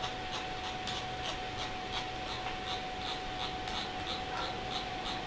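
Computer mouse scroll wheel clicking through its notches in quick light ticks, about six a second, as a long list is scrolled, over a faint steady whine.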